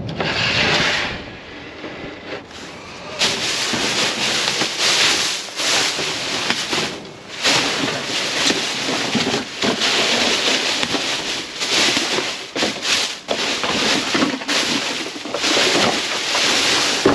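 Black plastic trash bags rustling and crinkling as gloved hands dig through and pull at them, in irregular bursts. A short burst comes at the start, it is quieter for a couple of seconds, and then it goes on almost without a break.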